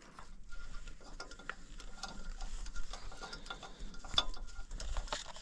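Irregular light metallic clicks and ticks as nuts and bolts are fitted by hand on the steel frame of a Woodland Mills HM126 sawmill.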